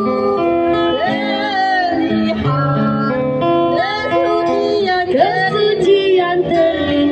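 Live street band music: a woman singing a melody over strummed acoustic guitar and sustained accompaniment.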